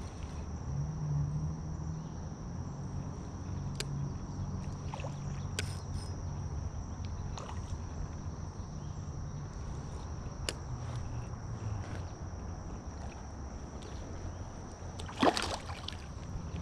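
Spinning reel being cranked, a low whirring with a few light clicks, and a sharper knock about fifteen seconds in.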